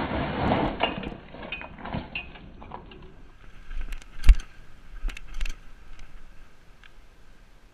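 Mountain bike coasting downhill on pavement: a rush of tyre and air noise fades in the first second or two, then the chain and freewheel hub click and rattle. One sharp knock comes about four seconds in.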